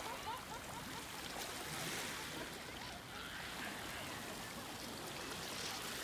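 Faint, steady wash of small waves on a pebble shore of a calm sea, a soft even hiss.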